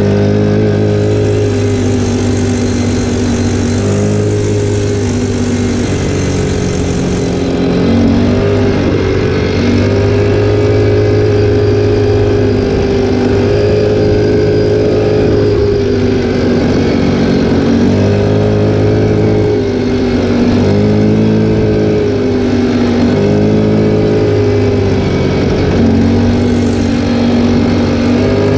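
Linhai 300cc 2x4 ATV's single-cylinder engine running under way, its pitch rising and falling again and again as the throttle is opened and eased.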